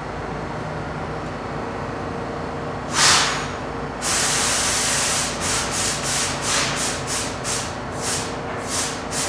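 R62A subway car standing with its equipment humming steadily, as compressed air hisses out: a sharp hiss about three seconds in, a longer hiss about a second later, then a run of short hisses roughly twice a second.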